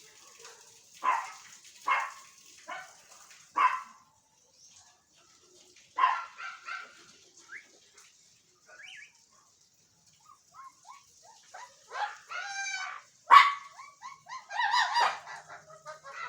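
Parrots calling: four short calls in the first few seconds, another about six seconds in, then longer wavering calls from about twelve seconds in.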